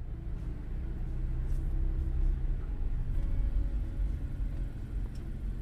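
Steady low rumble of a car on the move.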